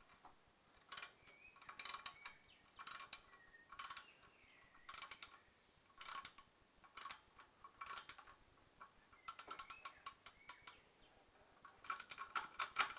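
Socket ratchet clicking in short bursts as a wheel nut is undone by hand, a cluster of clicks about once a second with each back-swing of the handle, and longer runs of rapid clicks about nine seconds in and near the end.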